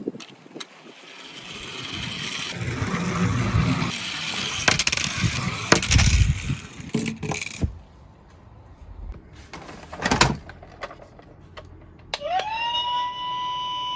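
Tomica die-cast toy cars rolling and rattling down a slope, a clattering rush that builds and then fades, followed by a few sharp knocks. Near the end a siren tone starts, rising quickly and then holding one pitch.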